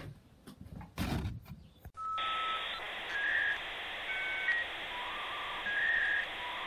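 A few faint clicks and a brief rustle, then about two seconds in an outro sound effect starts: a steady hiss with a series of short electronic beeps at changing pitches, two of them sounding together at one point.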